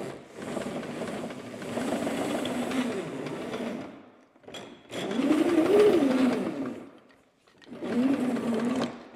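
The corrugated hose of a wall-mounted retractable vacuum rewinding onto its reel in three spurts, a rattling whir whose pitch rises and falls with the speed of the hose. The first spurt is the longest and the middle one the loudest.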